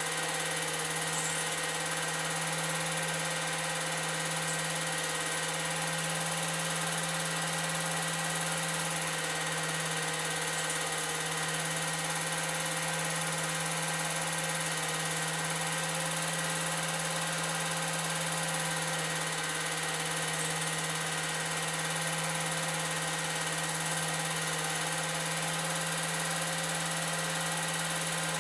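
8mm film projector running: a steady motor hum and whir with hiss, unchanging throughout.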